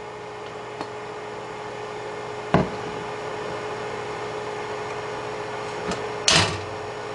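Gourmia digital French door air fryer oven running its preheat: a steady fan hum with one held tone. A sharp knock comes about two and a half seconds in, and a louder, longer clatter near the end.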